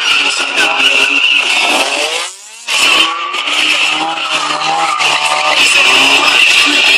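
Mazda MX-5 drifting, its rear tyres squealing steadily while the engine revs up and down. The squeal breaks off for about half a second about two seconds in, then resumes.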